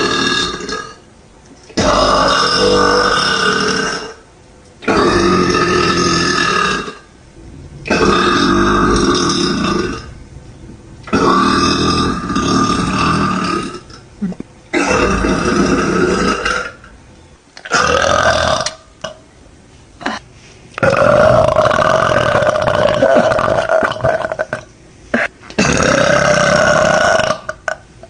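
A woman burping over and over: about ten long, loud burps of one to two seconds each, with short pauses between them.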